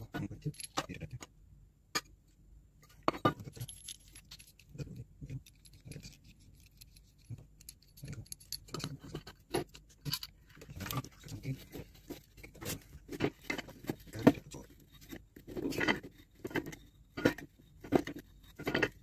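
Hands handling metal refrigerant cans and a brass can-tap valve: irregular small clicks, knocks and clinks of metal on metal as the valve is fitted and screwed onto the top of a can.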